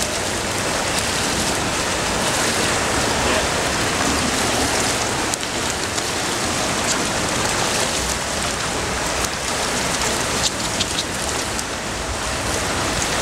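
Pool water splashing and churning steadily around a spinning synthetic logrolling log as a roller's feet keep it turning, with occasional light slaps.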